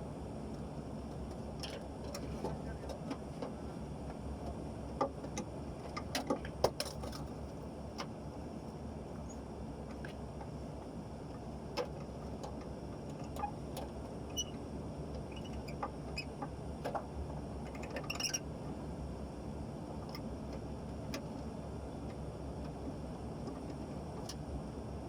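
Scattered light clicks and small metallic clinks of hand work with tools and hardware, over a steady low hum; the clicks bunch together around a quarter of the way in and again about three quarters through.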